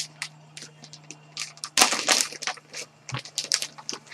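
Clear plastic bag crinkling and rustling as hands pull it open, in quick irregular crackles that are loudest about two seconds in.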